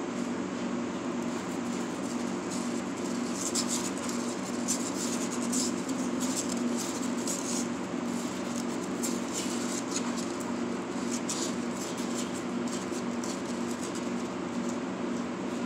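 Kittens' claws scratching and scrabbling on a cardboard box floor as they play, in irregular short scratches, over a steady low hum.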